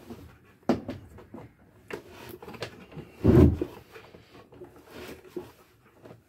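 Knocks and clunks of a wooden helm console and Seastar rotary helm being handled as the steering wheel is cranked to wind the steering cable into the helm gearbox. Sharp knocks about a second in and again about two seconds in, then a heavier thump about three seconds in.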